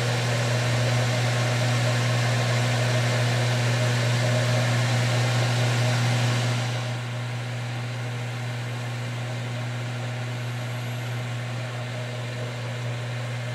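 Manual metal lathe running, its motor giving a steady hum under a broad hiss. About halfway through, the hiss drops away while the hum carries on unchanged.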